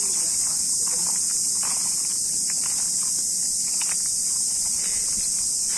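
A steady, high-pitched insect chorus drones without a break, with a few faint clicks and knocks scattered through it.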